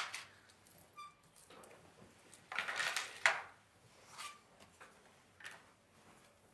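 Kumihimo kit pieces being handled: a few short bouts of rustling with light clinks, the loudest about three seconds in.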